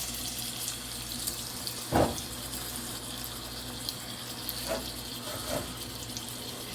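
Thin seasoned steak sizzling steadily in oil in a pan on low heat, with a steady low hum underneath and a short knock about two seconds in.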